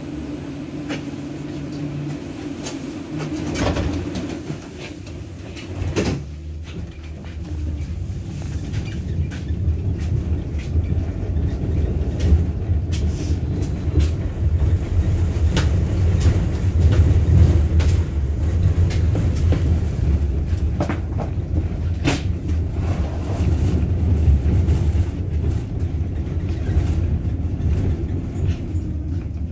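Inside a 71-623-02 low-floor tram under way: the steady low rumble of wheels and running gear on the rails, growing louder after the first several seconds, with a few sharp knocks.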